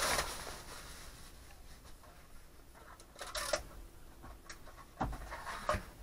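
Handling noise from plastic shop-vac accessories and packaging being taken out of the vacuum's canister: light rustling and scraping, with a low thump about five seconds in and a click just after.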